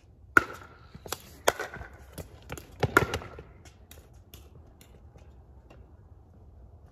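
Pickleball rally: paddles striking the hollow plastic ball in sharp pocks, with ball bounces on the hard court, a quick run of about eight hits in some three seconds, the first the loudest, then a few fainter taps.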